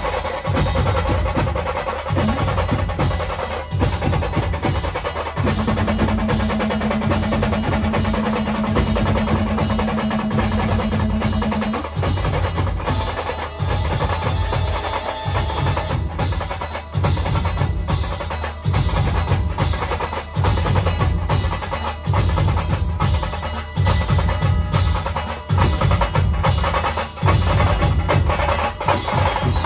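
Dhol tasha drumming: fast, rolling tasha strokes over heavy dhol beats in a continuous rhythm. A steady low note is held for several seconds starting a few seconds in.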